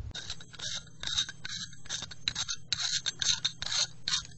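Irregular scraping and light clicks of small hard objects being handled and moved about.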